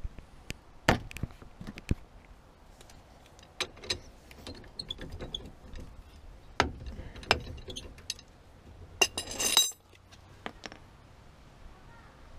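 Steel hand tools clicking and knocking on a car's front brake caliper as its 14 mm bolts are worked loose, with a short burst of rapid ratchet clicks about nine seconds in.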